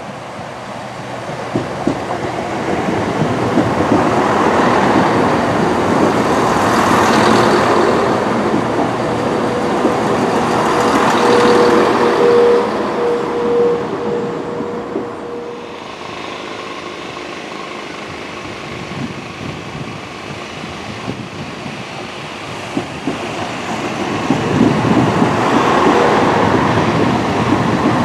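Class 170 Turbostar diesel multiple unit running through the station, its engine and wheels on the rails growing louder as it passes, with a brief high wheel or brake squeal about halfway through. After a sudden drop to a quieter stretch, a second Class 170 pulls away, its diesel engine rising under power near the end.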